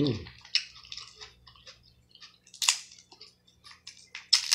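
Close-up eating sounds: irregular wet clicks and crackles of chewing and picking at boiled blue crab, with a few sharper cracks about halfway through and near the end.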